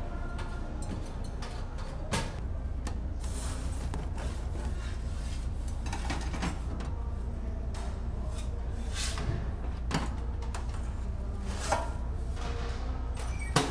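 Buffet kitchen clatter: a steady low hum with scattered short knocks and clinks of metal pizza trays and utensils on a stainless steel counter.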